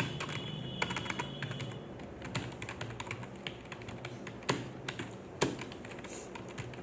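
Fast touch-typing on a computer keyboard: a quick, uneven run of keystroke clicks, with a few louder strokes about two-thirds of the way through.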